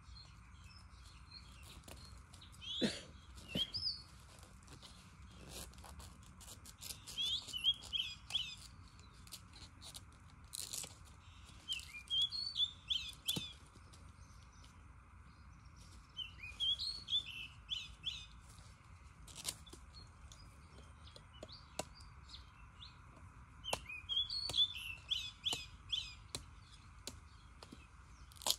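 Small birds chirping in short clusters of quick high notes every few seconds. Under them come scattered sharp knocks and cuts from a long knife trimming fresh bamboo shoots, over a steady faint drone.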